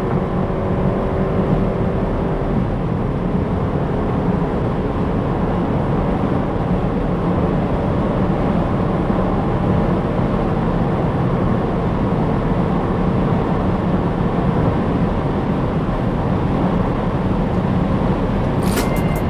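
Opel Insignia GSI on the move, heard as a steady drone of engine, tyre and wind noise, with a faint engine tone easing down slightly in the first couple of seconds.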